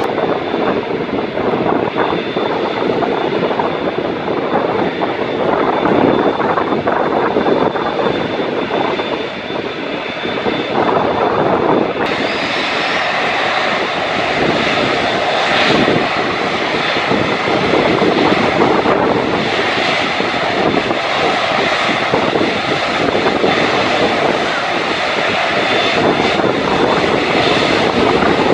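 Airbus A380's four Engine Alliance GP7200 turbofan engines running at taxi power as the jet taxis: a steady jet-engine noise with a thin high whine. About twelve seconds in, the sound changes abruptly and becomes brighter.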